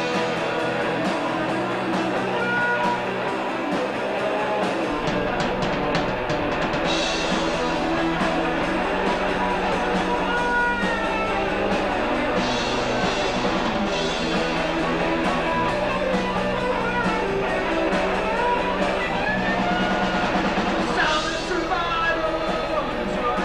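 Live band music: drums and guitar playing a rock song, steady throughout.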